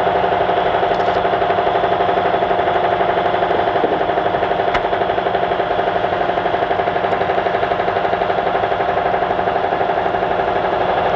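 Heavy engine running steadily at the wreck site, with a fast even pulsing beat and a steady whine over it, typical of the mobile cranes' machinery under load.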